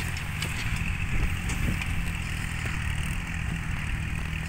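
A tractor engine running steadily, a low even drone with no letup.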